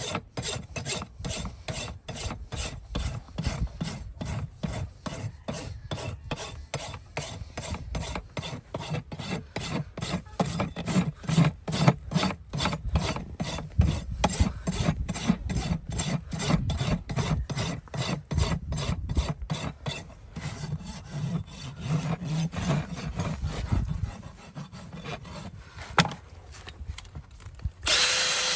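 Hand filing or rasping: quick, even back-and-forth strokes, about three a second, that thin out after about twenty seconds. A steady motor noise starts just before the end.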